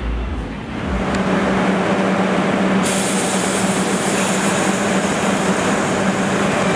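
New York City Subway R142 train running on the elevated line: a steady rumble of wheels on rail with a steady low hum, growing louder about a second in. About three seconds in the sound changes abruptly and turns brighter and hissier.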